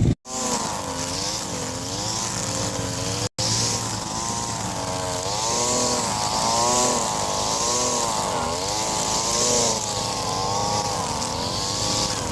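A 20-year-old lawnmower's small engine running while cutting very tall grass, its speed rising and falling over and over about once a second as the load changes.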